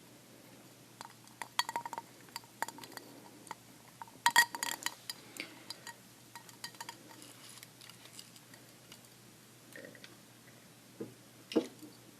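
Ice cubes clinking against the sides of a drinking glass as it is handled: scattered light clinks with a ringing tone, a quick flurry of them about four seconds in, and a duller knock near the end.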